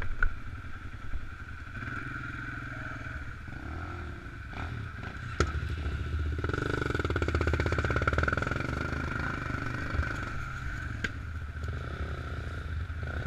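Single-cylinder four-stroke sport ATV engines running at low trail speed. About six seconds in they get louder as throttle is given, then ease off again. A few sharp knocks and clatters come through, one near the start, one about five seconds in and one about eleven seconds in.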